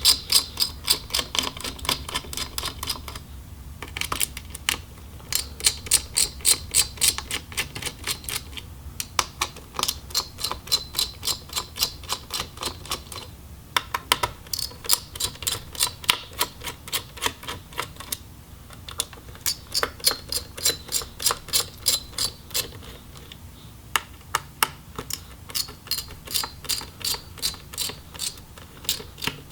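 Screwdriver clicking in quick regular runs of about three clicks a second as the laptop's heatsink screws are backed out, with short pauses between screws.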